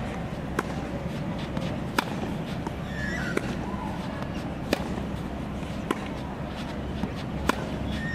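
Tennis ball being struck back and forth in a baseline rally: about six sharp pops, roughly one every second and a half, from racket strings hitting the ball and the ball bouncing on the hard court.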